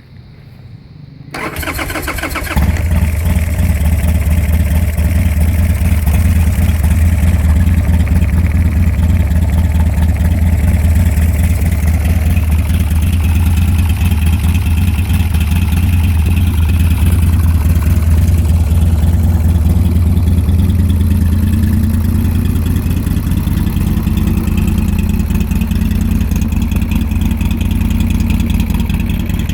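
Buell X1 Lightning's air-cooled V-twin being started: about a second of electric-starter cranking, then it catches and idles loudly and steadily with a deep, even pulse. Its idle speed creeps up slightly in the last third.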